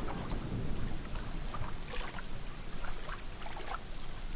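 Water lapping and sloshing against a shore: a steady wash with small scattered splashes.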